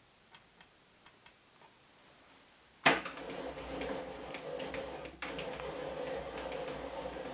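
A few faint ticks, then about three seconds in a table saw comes in suddenly and runs steadily with a hum and a steady whine.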